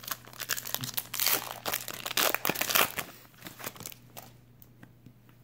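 Wrapper of a Panini Contenders football card pack crinkling and crackling as it is torn open and the cards are pulled out. It dies down about four seconds in.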